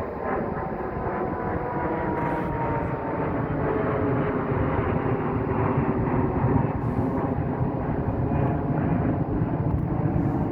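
Gas-powered ice auger engine running steadily, its pitch sagging slightly over the first few seconds and the sound growing a little louder after about four seconds.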